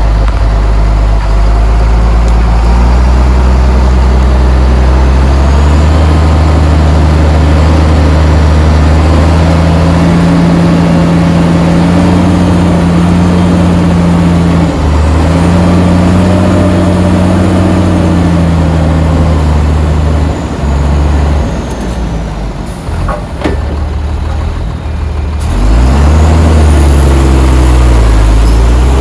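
Heavy diesel engine of earthmoving machinery working under load, its pitch rising and falling as it revs. It eases off for a few seconds about twenty seconds in, then revs back up near the end.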